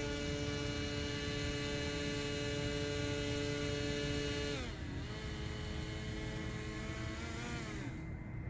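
Battery-powered motor and air propeller of a radio-controlled Aquacraft Mini Alligator Tours airboat running with a steady humming drone. About halfway through the pitch drops as the throttle eases, rises briefly near the end, then falls again.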